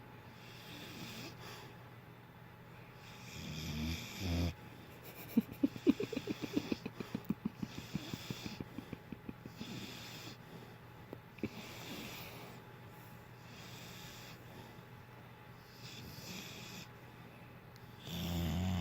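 Dog snoring in its sleep, with slow breaths every couple of seconds. From about five seconds in there is a rattling run of quick pulses, about five a second, that fades away over several seconds, and a louder low snore comes near the end.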